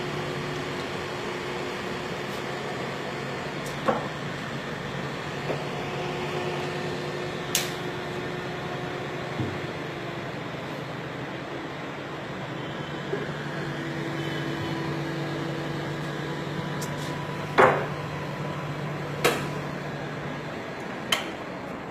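Steady low machine hum over a constant background hiss, broken by a handful of short, sharp clicks and knocks, the loudest about two-thirds of the way through.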